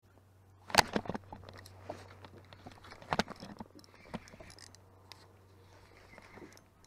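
Clicks and knocks of a spinning rod and reel being handled close by, the loudest about a second in and another about three seconds in, with a faint steady hum underneath.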